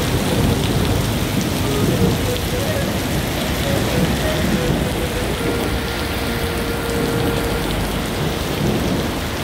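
Heavy rain pouring onto wet pavement and the street, a steady hiss with a deep rumble underneath.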